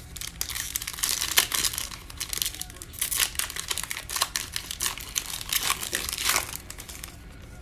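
Foil wrapper of a trading card pack crinkling and tearing as the pack is opened. The crackling is irregular and lasts about six seconds, then dies down near the end.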